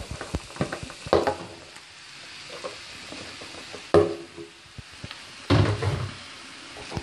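Carrots and capsicum sizzling in a frying pan as boiled noodles are tipped in and stirred with a wooden spatula. Scattered clicks and scrapes over the steady frying hiss, with louder knocks about four seconds in and again about five and a half seconds in.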